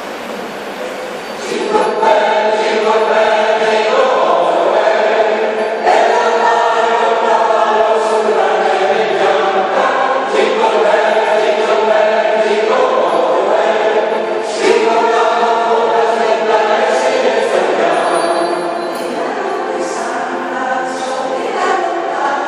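Mixed choir of men's and women's voices singing, with the full choir coming in about two seconds in.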